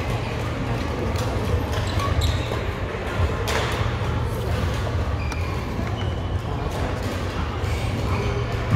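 Badminton doubles rally: sharp racket strikes on the shuttlecock and players' footfalls on the court, the strongest hit about three and a half seconds in. A steady low hum of the hall runs underneath.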